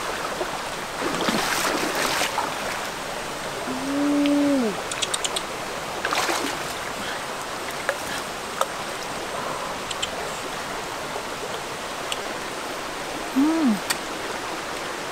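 Shallow rocky stream running steadily, with brief splashes of someone wading through it. A short low pitched call falls away at its end about four seconds in, and a briefer one rises and falls near the end.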